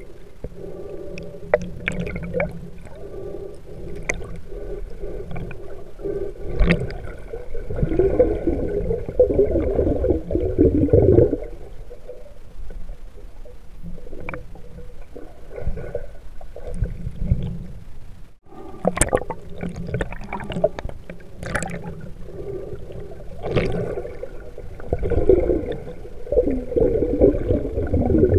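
Muffled underwater sound of river water picked up by a submerged camera: a low rushing rumble that swells and fades, with bubbling and scattered sharp clicks and knocks.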